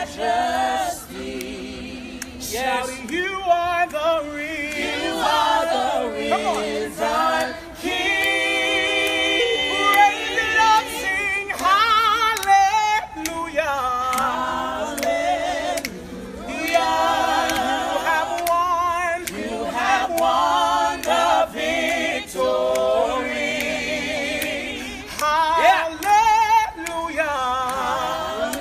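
A small group of women singing a gospel worship song a cappella, with long held notes that waver in pitch.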